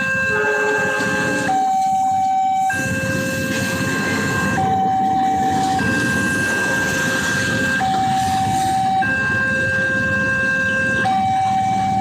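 Railway level-crossing warning alarm sounding its electronic two-tone signal: a lower tone and a higher tone take turns, about a second low and two seconds high, over and over. A steady rumble of rail traffic joins about three seconds in.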